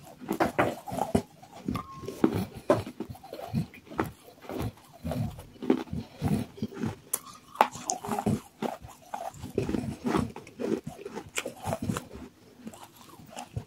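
Close-up chewing and crunching of soaked clay-pot pieces in the mouth: irregular crisp crunches and wet mouth sounds, several a second.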